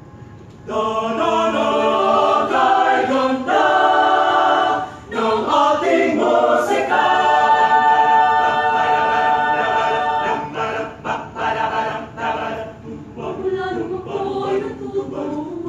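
University chorale singing a cappella in full chords, coming in together about a second in, with sustained chords and a brief break around the fifth second.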